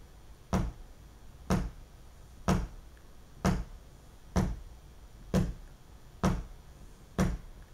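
One person clapping hands steadily on the beat, about one clap a second, eight claps in all.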